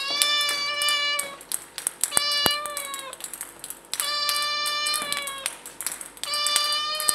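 A cat meowing four times, long, even-pitched meows of about a second each, over quick, irregular light clicks of table-tennis balls bouncing on a hard floor.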